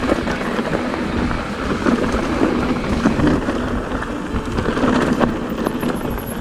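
Mountain bike rolling fast over a rocky trail: tyres grinding over loose stones, with a dense run of small knocks and rattles from the bike over the bumps.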